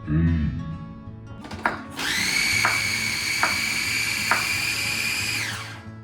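Small electric food processor run for about three and a half seconds to chop cilantro, a steady high motor whine that winds down as it stops.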